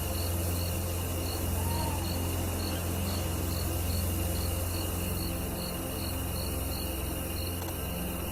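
Cricket chirping steadily at about three chirps a second, over a low steady drone.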